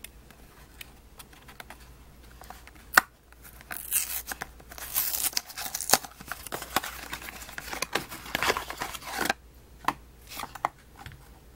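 Paperboard toothpaste carton being torn open by hand: a sharp snap about three seconds in, then several seconds of ripping cardboard, then a few light clicks near the end.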